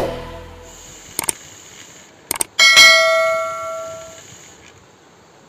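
Subscribe-button sound effect: two quick mouse clicks about a second in, two more a little after two seconds, then a bright notification-bell ding that rings out for about a second and a half.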